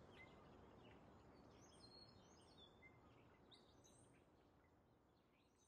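Near silence: faint bird chirps over a low hiss, slowly fading out.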